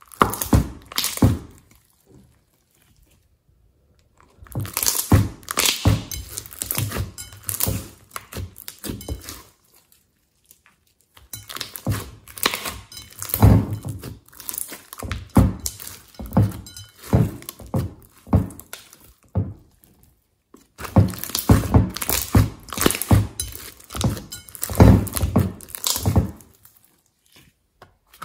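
Hands squeezing and stretching sticky beaded slime, making quick wet clicks and pops. The sounds come in several runs with short pauses between them.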